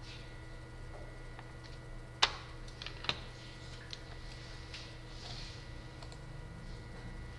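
Whiteboard marker ticking and scratching against the board as equations are written: a few sharp clicks, the loudest about two seconds in and another a second later, with fainter short strokes. A steady low hum runs underneath.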